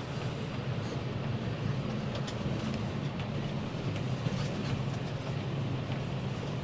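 Vehicle engine running at a steady low hum, with a few faint clicks and rattles.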